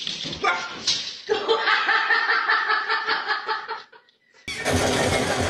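A person laughing hard: a quick run of pulsing ha-ha sounds lasting about four seconds. About four and a half seconds in, it breaks off and a different, dense, steady noise starts abruptly.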